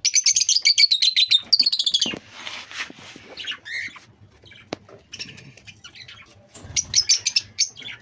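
Caged pet birds, a mix of lovebirds, budgerigars, cockatiels and Java sparrows, chirping: a fast run of shrill chirps for about the first two seconds, scattered calls after, and another burst of chirps near the end.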